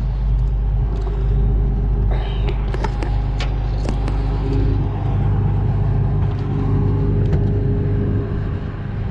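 Diesel engine of a Case IH 7088 combine running steadily, its pitch and low rumble shifting a little about halfway through. A few sharp metallic clicks and knocks come about two to four seconds in.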